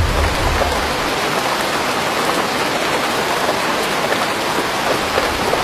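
Steady heavy rain falling as a dense, even patter. A low thunder rumble dies away in the first second.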